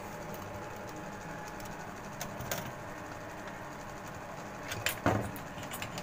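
Steady background hum broken by a few light clicks and taps, then a brief thump and more clicks near the end, as the paper diagram and the wiring board are handled.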